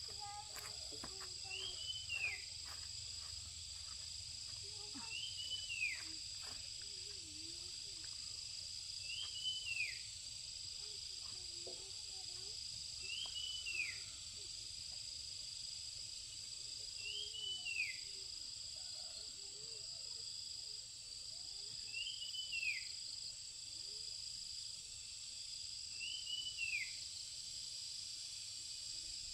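Steady high insect drone of crickets or cicadas. Over it a bird repeats one short call that rises briefly and then slides down, about every four seconds, eight times.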